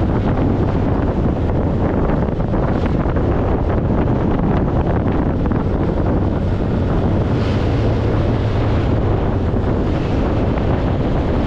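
Wind buffeting the microphone of a motorcycle-mounted action camera while riding, over the steady drone of the motorcycle's engine.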